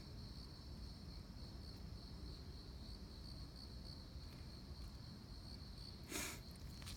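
Crickets trilling steadily in a high, even chorus. About six seconds in, a single short, loud, noisy burst cuts across it.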